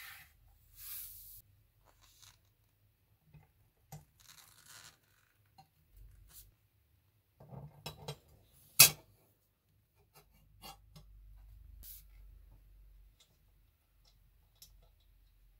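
Handling noise from a pair of giant steel scissors with brass handles being assembled on a hard stone bench: scattered small metal clicks and taps with a few brief rustles. One sharp metal clack about nine seconds in is by far the loudest sound.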